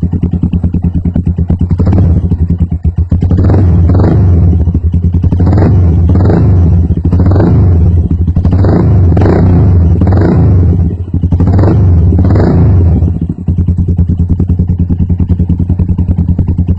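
Rusi SS Nova 150 motorcycle running through an aftermarket Akrapovic-style exhaust, very loud. It idles, is revved in quick repeated throttle blips about once a second for roughly ten seconds, then drops back to a steady idle.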